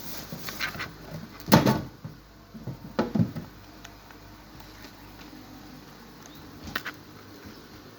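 Clicks and knocks of phone parts and small tools being handled during the disassembly of a smartphone. The loudest knock comes about a second and a half in, another about three seconds in, and a couple of light clicks near the end.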